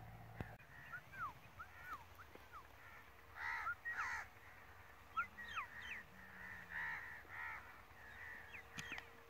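Birds calling in open country: two pairs of loud, harsh, crow-like caws, about halfway through and again later, among many short rising and falling chirps from smaller birds.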